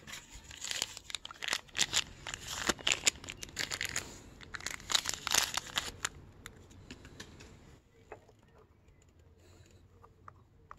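Close rustling and crinkling with many sharp crackles, like something being handled right against the microphone. It runs dense for about six seconds, then dies down to faint scattered clicks.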